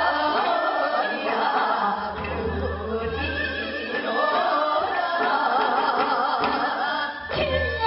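Women's voices singing Seodo sori, western Korean folk song, together with a wide, wavering vibrato, accompanied by haegeum fiddles and a bamboo flute.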